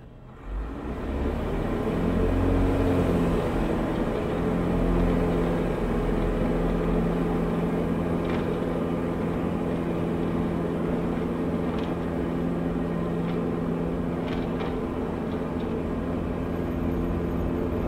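Diamond DA40's single piston engine and propeller going to full power for the takeoff roll, swelling about half a second in and then running at a steady full-throttle pitch, heard from inside the cabin.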